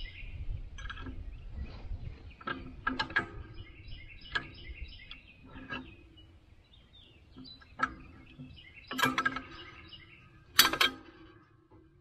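Hand tools clinking and knocking on the hay rake's steel linkage as it is taken apart: irregular sharp metal clanks, some with a brief ringing tone, the loudest two near the end. Birds chirp in the background.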